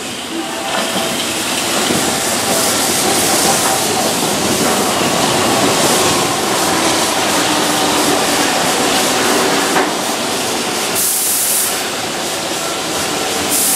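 Keihan 2600-series electric train running past on curved track: a steady rushing noise of wheels rolling on rails, with a brief high hiss about eleven seconds in.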